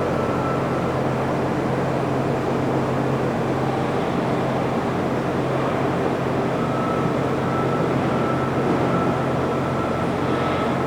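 Steady hum of running shop machinery, electric motors with a low droning tone and a faint high whine that fades out and returns about two-thirds of the way in.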